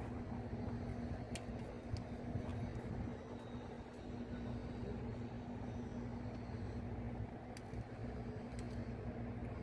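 A steady low mechanical hum with one constant tone running under it, and a few faint, sharp clicks scattered through.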